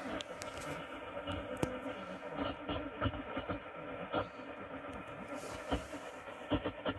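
Car radio tuned to 1377 kHz on the AM (medium-wave) band, playing a weak, distant signal buried in static hiss, with scattered crackles and clicks.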